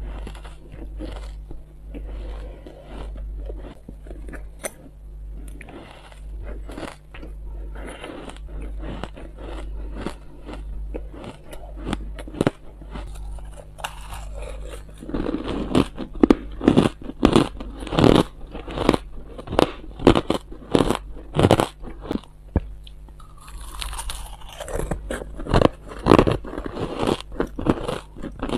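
Close-miked chewing and crunching of mouthfuls of purple shaved ice. Softer, grainy crunches in the first half, then louder, sharper crunches from about halfway.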